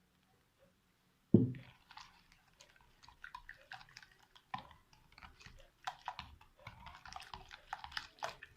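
Liquid cake batter of eggs, sugar, milk and oil being stirred by hand in a bowl, with wet sloshing and the utensil clicking irregularly against the bowl. A single knock comes about a second in.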